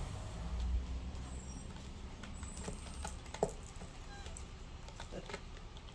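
Kitten's claws scratching and snagging on a sisal-rope scratching post: scattered light scratches and clicks, with one sharper click about three and a half seconds in. A low rumble sits under the first second.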